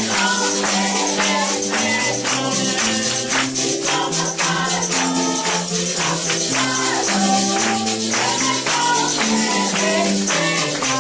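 Upbeat worship music with a steady beat and a jingling tambourine, with voices singing along.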